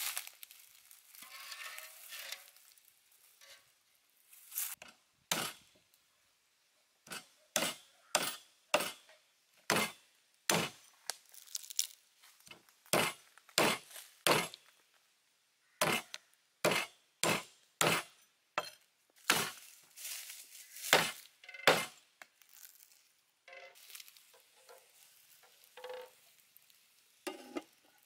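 Beef ribs being chopped with a blade on a thick wooden chopping board: a long run of sharp chops, one or two a second, that stops a few seconds before the end, followed by softer clatter.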